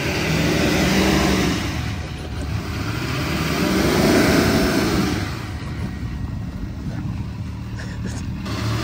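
Pickup truck's engine revving up and falling back in long surges while its tyres spin in mud: the truck is stuck and can't get traction, and the engine is repeatedly run up toward the rev limiter.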